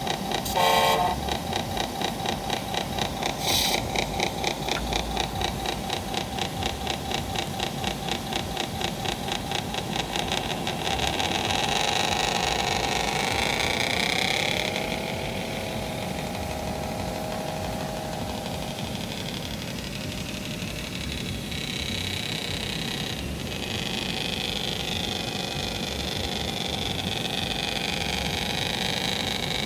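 Radio-controlled 8x4 tipper truck running, its engine sound pulsing steadily at about five beats a second, with a brief tone about a second in. Around twelve seconds in the pitch rises and glides for a few seconds, then settles into a steadier hum.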